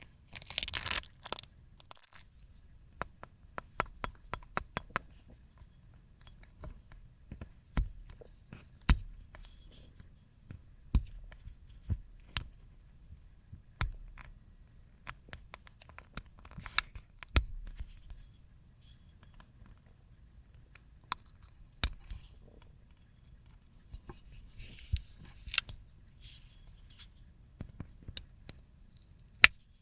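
A dried film of slime being peeled off a plate: irregular sharp crackles and clicks as it lets go. There are short stretches of tearing near the start and again near the end.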